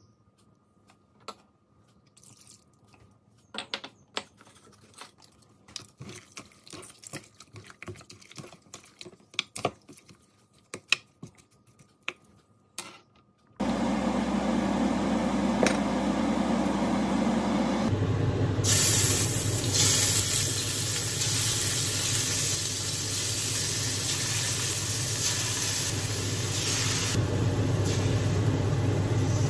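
Chicken breast pieces sizzling in hot oil in a steel wok, a loud, even hiss over a low hum that sets in about two-thirds of the way through. Before it comes a quieter steady hiss, and earlier still only scattered light taps and clicks.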